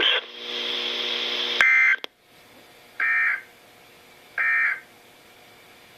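Weather radio's EAS end-of-message signal: three short, buzzy digital data bursts about a second and a half apart, closing the alert. Before them the receiver gives a steady hum with hiss, broken by a click.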